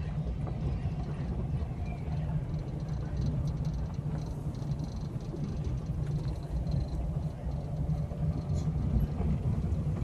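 A vehicle travelling along a road, heard as a steady low rumble that holds at an even level throughout.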